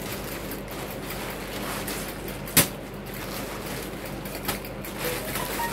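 Thin plastic shopping bag rustling and crinkling as things are drawn out of it by hand, with one sharp knock about two and a half seconds in.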